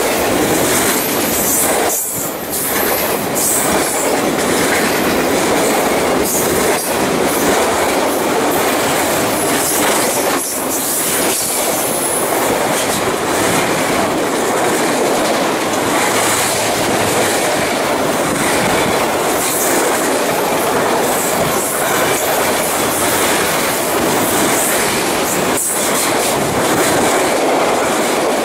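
Autorack freight cars rolling past close by: a loud, steady noise of steel wheels on the rails, with a high squeal that comes and goes.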